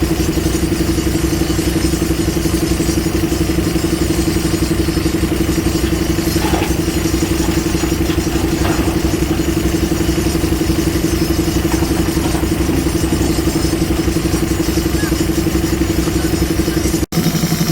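JCB 3DX Super backhoe loader's diesel engine running steadily while it works. It breaks off for an instant near the end and comes back at a lower note.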